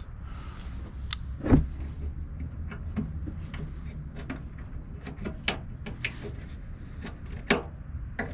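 Scattered sharp clicks and knocks of a plastic inner fender liner being worked into a truck's wheel well and its small plastic fasteners being started, over a steady low hum. Louder knocks come about a second and a half in and again near the end.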